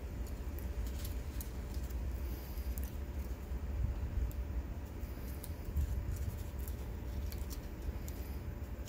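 Light clicks, ticks and paper rustling as a utility-knife tip works adhesive tape off thin stainless-steel air-compressor reed valves, over a steady low rumble and faint hum.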